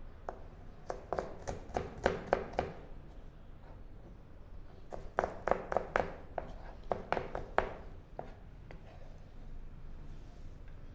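Kitchen knife chopping vegetables, carrot among them, on a plastic cutting board: two runs of quick, even strokes about four or five a second, each lasting a couple of seconds, with a lull between them and only light taps near the end.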